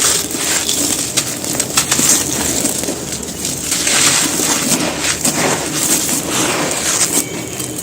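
Dry, gritty handmade cement cups and balls being crushed and crumbled: a continuous crunching with many small sharp cracks.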